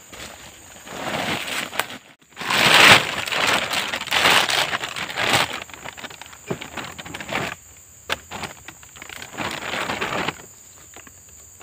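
A plastic bag crinkling and rustling in irregular bursts as slabs of wild honeycomb are handled over it, loudest a few seconds in and dying down after about ten seconds.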